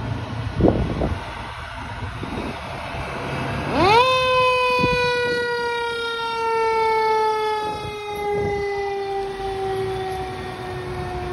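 Fire truck siren winding up sharply about four seconds in, then slowly winding down in pitch, over the low rumble of the ladder truck pulling out. Two brief loud sounds come about a second in.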